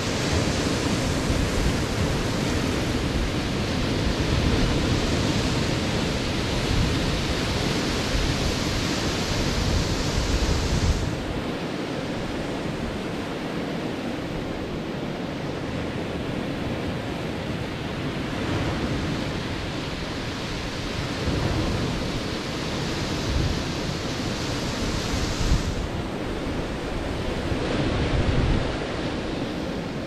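Ocean surf breaking and washing up a sand and rock beach, a continuous rushing. It is fuller for the first third, eases a little about a third of the way in, and swells again near the end.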